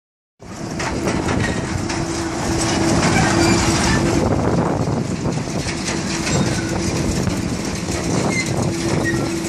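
Electric bucket-chain gravel excavator running: its chain of buckets clanking and rattling continuously, with a steady hum underneath. It starts about half a second in.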